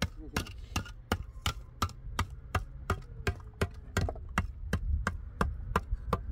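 Rhythmic chopping: sharp, evenly spaced strikes about three times a second, with a low steady hum beneath.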